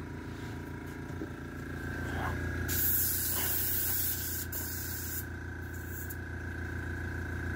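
Airbrush being flushed clean with water for a colour change, spraying hissing bursts of air and water: a long burst about three seconds in and a shorter one a couple of seconds later, over a steady motor hum.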